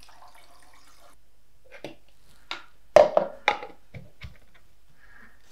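Photographic fixer poured from a plastic measuring jug into a film developing tank, a short trickle at the start, followed by a string of hard plastic knocks and clicks as the jug is set down and the tank is handled, the loudest about three seconds in.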